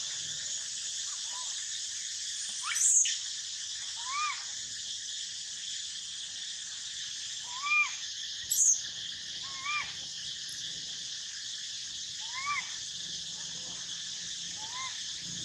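A young macaque calling, with short rising-and-falling coos every second or two and two louder, sharp cries about three and nine seconds in, over a steady high buzz of insects.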